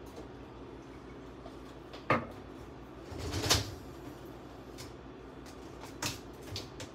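Kitchen cupboard and containers being rummaged through during a search for a container lid. There is a sharp knock about two seconds in, a longer, louder clatter around three and a half seconds, and a couple of lighter knocks near the end.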